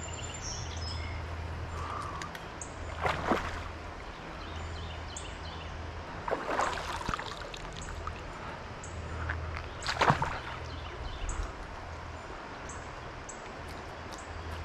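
River water running steadily, with a few louder sloshing splashes: one about three seconds in, another around six to seven seconds, and the loudest about ten seconds in.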